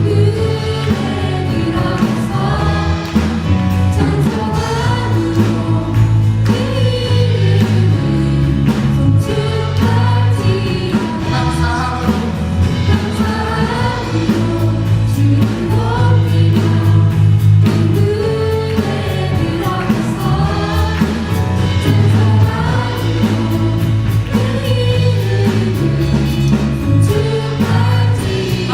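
Church praise team singing a worship song as a group, with live band accompaniment.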